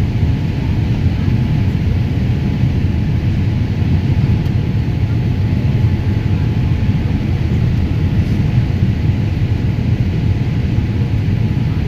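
Steady cabin noise inside a Boeing 787 Dreamliner on approach to land: a constant low rumble of engines and airflow, with a faint steady tone above it.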